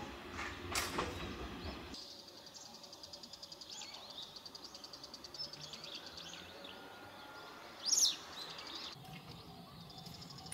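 Small birds chirping, with one louder sweeping call about eight seconds in, over a rapid, even high-pitched ticking. The low rumble of a train at the start stops abruptly about two seconds in.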